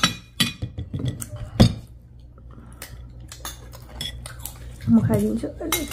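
Metal fork and cutlery clinking on ceramic plates in scattered taps, the sharpest about a second and a half in, with a short stretch of a voice near the end.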